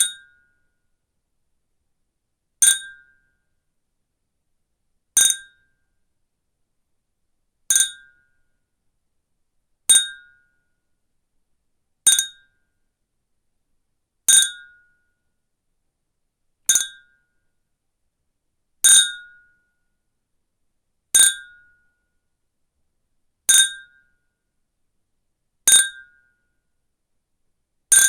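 Two water-filled glass beer glasses clinked together again and again, about every two and a half seconds. Each clink is a bright, short ring that dies away in under a second.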